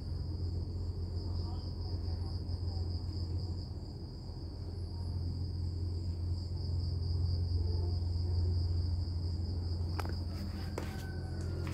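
A steady low hum with a continuous high-pitched insect trill above it, and a few light clicks about ten seconds in.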